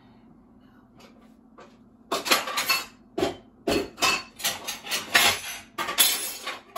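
Kitchen clatter of dishes and cutlery being handled: after about two quiet seconds, a quick run of clinks and knocks, a few of them deeper, that runs on to the end.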